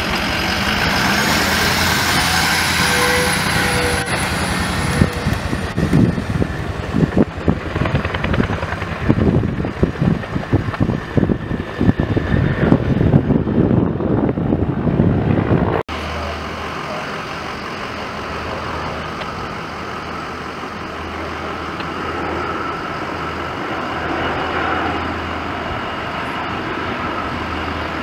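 Fire trucks driving past on a road, engine and tyre noise with an uneven, pulsing rumble. After a sudden cut about halfway, a steadier, quieter engine drone.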